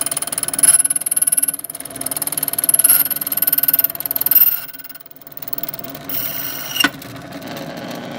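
Key duplicating machine's motor running while its cutting wheel cuts a brass key blank, a high-pitched whine that swells and dips as the key is moved along the guide. It eases off about five seconds in, and a sharp click follows near the end.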